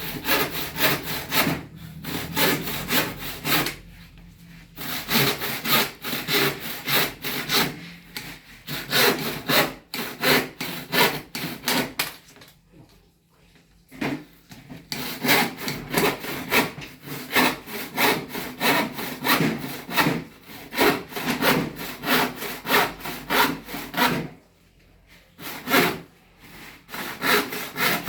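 Handsaw cutting through wood in steady back-and-forth rasping strokes. It pauses briefly three times before sawing on.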